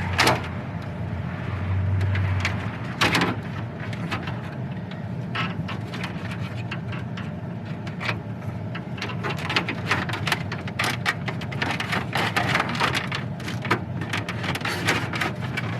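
Plastic clicks, snaps and rattles as the factory dash bezel of a 2000 Chevrolet Silverado is pulled loose from its retaining clips. The snapping comes thicker in the second half, over a steady low hum.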